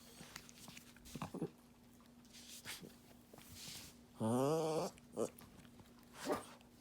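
Small dog making a weird, drawn-out moaning grumble to ask to be petted: one loud call rising slightly in pitch about four seconds in, with a few short, softer noises before and after it.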